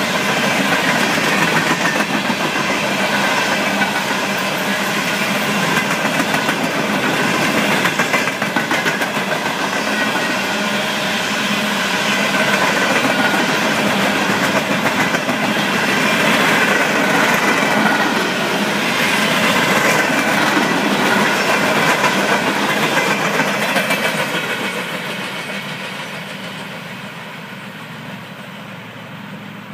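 Freight train hopper cars rolling past on steel wheels and rail, a steady rumble and clatter. It fades away over the last few seconds as the end of the train passes.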